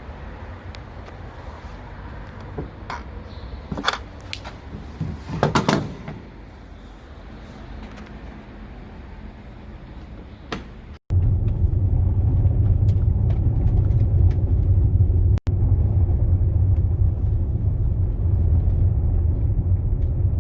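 A few sharp knocks over quiet noise, then, after an abrupt cut, the steady low rumble of a car driving, heard from inside the cabin.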